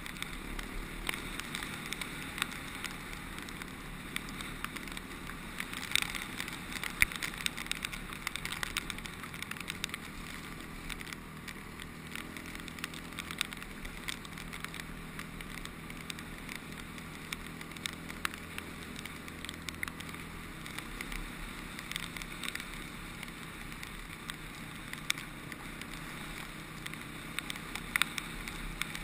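Honda CRF250X single-cylinder four-stroke dirt bike engine running at a fairly steady pace while riding along a wet gravel track, with wind on the camera microphone. Scattered sharp clicks and knocks sound over the engine.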